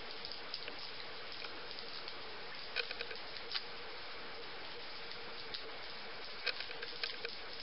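Foil trading card pack wrapper crinkling as it is picked and torn open by hand: a few sharp crackles about three seconds in and again near the end, over a steady hiss.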